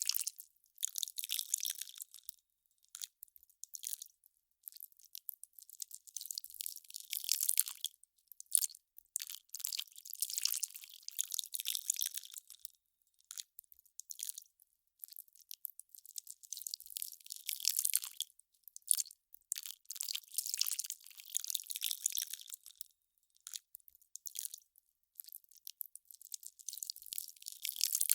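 Melting ice crackling in irregular bursts of crisp, high-pitched crackle, with short silent gaps between them.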